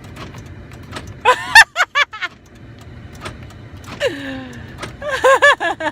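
Loud bursts of a person laughing, in two fits, with a falling squeal between them, over the steady low hum of a car engine running.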